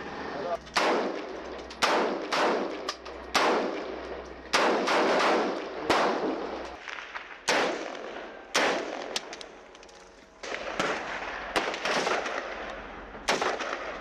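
Rifle gunfire in a built-up area: single shots at an irregular pace of roughly one a second, each with an echoing tail.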